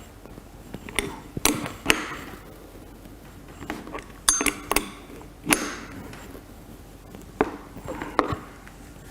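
Adjustable wrench clinking on the seat-clamp nuts of a bicycle seat post as it is fitted and turned to tighten them: a series of sharp metal clicks and clinks at irregular intervals.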